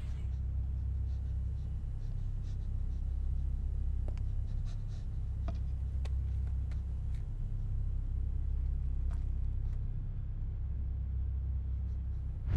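A steady low rumble, like a dark ambient drone, with faint small clicks and scratches scattered through it.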